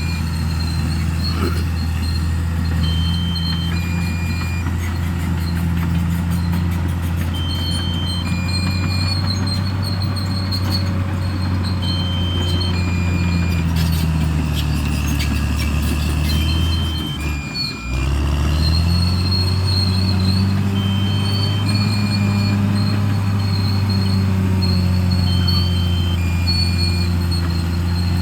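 Bulldozer's diesel engine running steadily and loud; about two-thirds of the way through, its revs sag and briefly drop away, then climb back up. Short high electronic beeps repeat every few seconds throughout.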